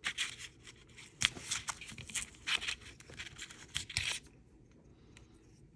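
Paper coin-roll wrapper crinkling as it is torn and pulled open by hand, an irregular run of sharp crackles that stops about four seconds in.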